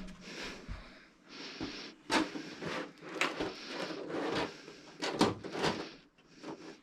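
Parts of a flat-screen TV being handled and fitted back in place during reassembly: irregular scraping and rustling with sharp clicks and knocks, the loudest about two, three and five seconds in.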